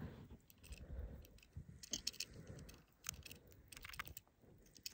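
Faint, scattered small clicks and rattles over a low rumble.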